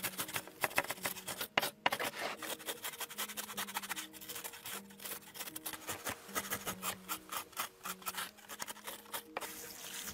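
Metal box grater scraped quickly back and forth over a whole fish's skin, rasping off the scales in rapid strokes with a short pause a little before two seconds in. Faint background music plays underneath.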